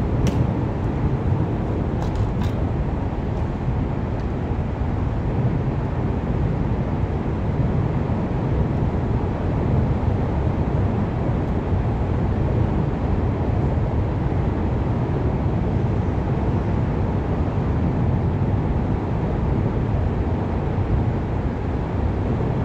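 Steady low rumble of outdoor background noise, with a few faint clicks in the first few seconds.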